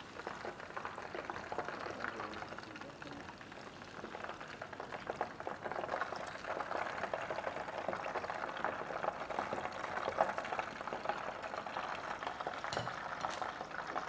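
Hot oil sizzling and crackling steadily as egg-coated tofu deep-fries in a pot, a little louder after the first few seconds. A few light clicks near the end.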